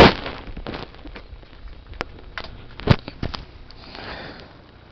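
A few sharp clicks and knocks from handling a homemade pedestal fan as it is switched on for a test. The loudest comes about three seconds in.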